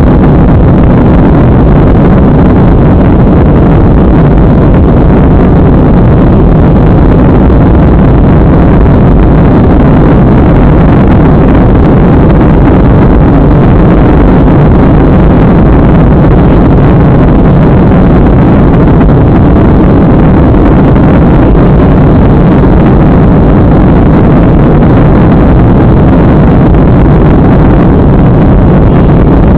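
Steady cabin noise of a Boeing 737 climbing after takeoff: its CFM56 jet engines and the air rushing past the fuselage, one even, loud noise that does not change. It is loud enough to overload the small camera's microphone.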